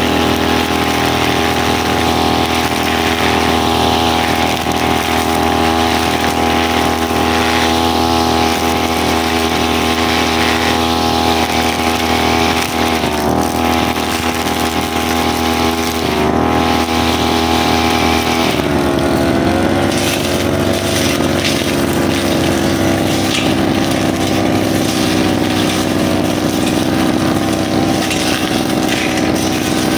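Brushcutter engine running steadily at speed, its pitch shifting and then wavering from about two-thirds of the way through.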